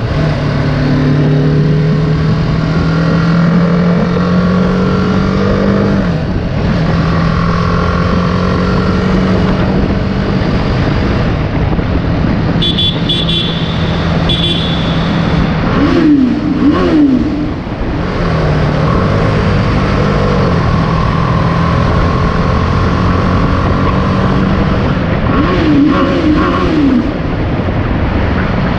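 BMW G310R's single-cylinder engine running under way in a tunnel, with wind rush, its pitch climbing slowly as it pulls. About halfway through, and again near the end, the throttle is blipped in a quick run of revs that rise and fall. The first run is the loudest moment.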